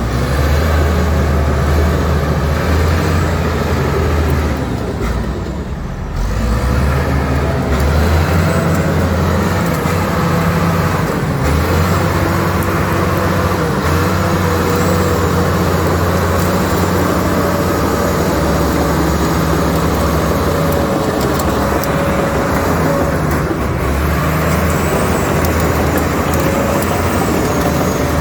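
Komatsu D85ESS crawler bulldozer's diesel engine running steadily while working, with a wavering higher whine above the engine hum. The engine eases off briefly about five seconds in, then picks up again.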